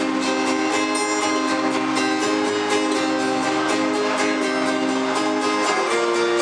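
Strummed guitar playing an instrumental passage between sung lines of a song, with steady rhythmic chord strokes. The chord changes near the end.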